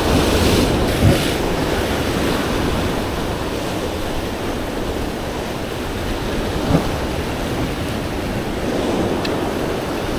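Ocean waves washing against rocks, with wind rushing over the microphone. Two brief low thumps come about a second in and again past six seconds.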